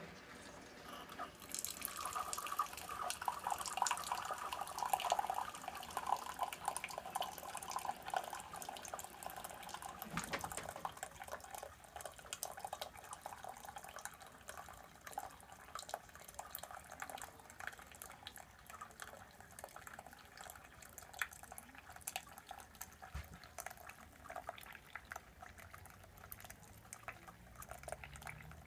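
Keurig B3000 brewer dispensing coffee: a thin stream pouring and trickling into a mug, with a crackling hiss, louder in the first ten seconds and then a steadier, quieter trickle. Near the end a low hum starts, rising in pitch.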